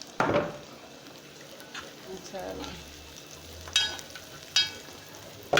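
A metal utensil knocks against a cooking pot four times. Two of the knocks ring briefly with a metallic tone. Under them is a steady hiss of food cooking in the pot.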